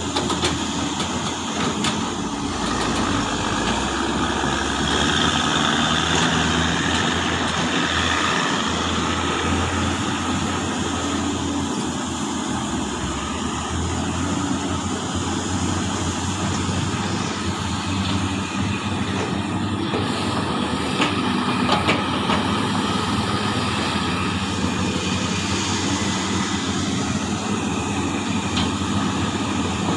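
Large hydraulic excavator's diesel engine running steadily under work, with a higher whine for a few seconds near the start and a few sharp knocks about two-thirds of the way through.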